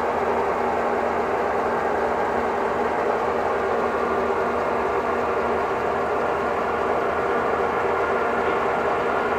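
Heavy diesel engine running steadily at a constant speed, a continuous hum with a few held tones and no change in pitch.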